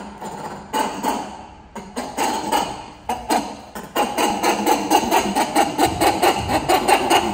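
Young macaque monkey crying for its mother in short, sharp, repeated calls, scattered at first and then settling into a fast steady run of about four or five a second about four seconds in: a baby monkey's distress cry to be held and fed.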